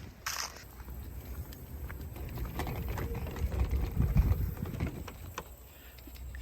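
Footsteps walking on a path, a string of light scattered steps, over a low rumble on the microphone that swells about four seconds in.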